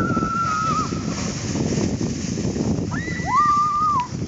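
Long, high-pitched squeals from people sliding down a snowy slope on sleds: one drawn-out cry that breaks off about a second in, then two voices squealing together at different pitches near the end. A rough rustling noise runs underneath.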